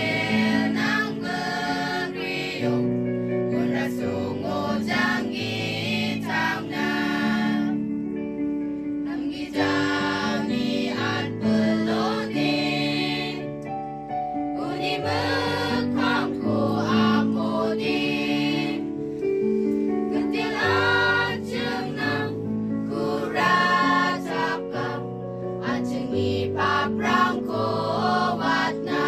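A group choir singing, carried over sustained low held accompanying notes.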